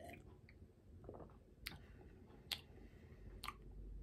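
Soft mouth sounds of someone tasting hot tea: a faint sip from a mug at the start, then three small lip-and-tongue clicks as he tastes it.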